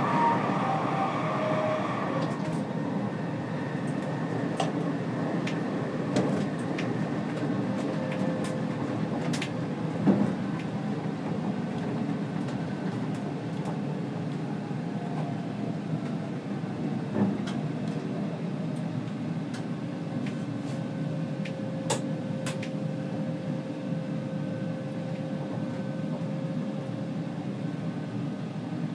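Stockholm metro C20 train running along the track, heard from on board: a steady rumble with scattered sharp clicks and knocks from the wheels and running gear. A falling whine fades out in the first couple of seconds, and a faint steady tone sounds in the second half.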